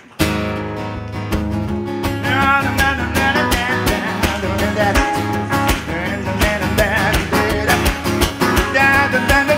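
Acoustic guitar strummed in a steady rhythm over keyboards: a live band's instrumental intro, cutting in sharply just after the start, with a wavering melody line on top.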